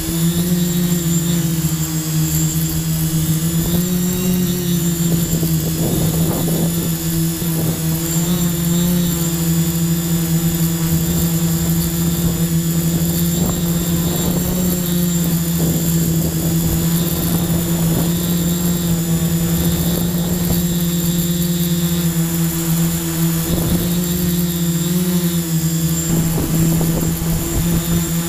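Quadcopter drone's electric motors and propellers humming steadily, heard up close on board, with a constant high whine and small shifts in pitch.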